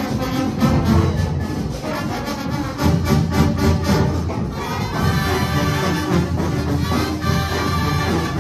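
Marching band playing live, brass over drums, with regular drum strokes clearest in the first half and held brass notes later.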